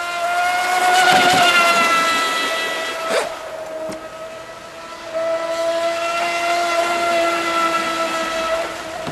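Aero Marine Thunderbolt electric RC hydroplane at full speed: its Neu 2215 brushless motor and propeller give a steady high-pitched whine over a hiss of spray. Loudest as it passes close a second or so in, dipping with a brief knock about three seconds in, then rising again from about five seconds.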